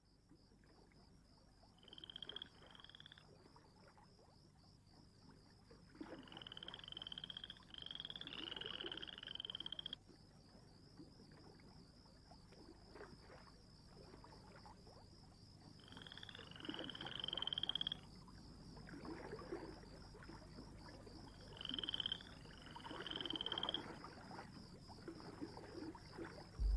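Faint nature ambience of frogs croaking in four short bouts, over a steady, high, pulsing trill.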